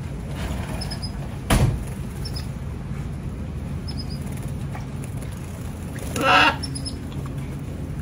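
Canaries giving a few faint, short high chirps at a stone birdbath, over a steady low background rumble. A sharp tap comes about a second and a half in, and a louder brief rustling burst about six seconds in.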